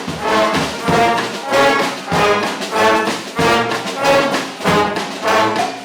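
Community street band of brass instruments playing a lively tune, the horns pulsing on a steady beat about twice a second.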